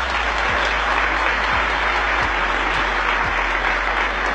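Large audience applauding steadily, a dense wash of clapping that cuts off suddenly near the end.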